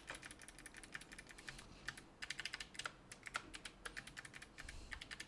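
Computer keyboard typing: a fast, irregular run of soft key clicks, with a brief pause about two seconds in.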